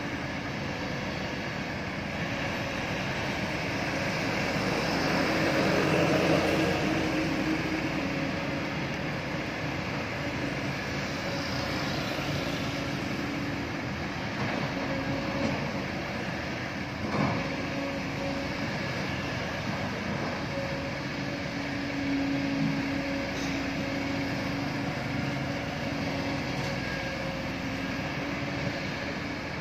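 Steady diesel engine noise from a tracked excavator working at a dump truck, mixed with passing road traffic. A vehicle passing swells the sound about six seconds in, and there is a single sharp knock a little past halfway.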